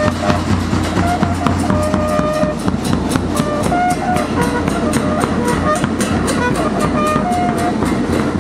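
Music with a quick, steady beat and a melody of held notes.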